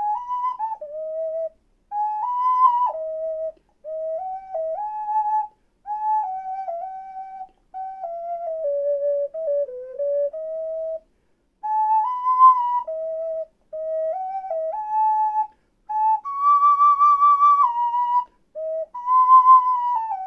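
Ocarina playing a practice melody of single clear notes in short phrases, stepping and leaping up and down, with brief breaths between phrases. Near the end comes a longer held high note.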